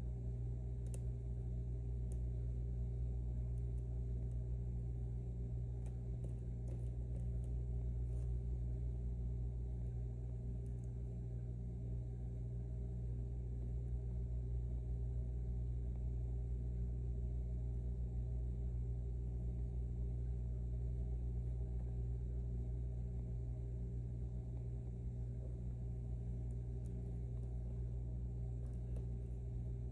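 Steady low electrical hum with several fixed pitches throughout, over which come a few faint, scattered clicks of a lock pick and tension tool working the pins of an M&C Matrix lock.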